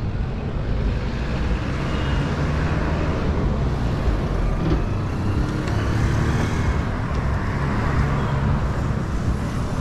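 Road traffic noise: a steady low rumble, with a vehicle engine's hum standing out from about halfway through.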